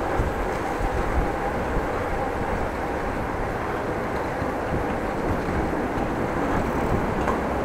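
Steady rolling noise of a bicycle ride: tyre rumble on the road and wind on the action camera's microphone, with a faint steady hum.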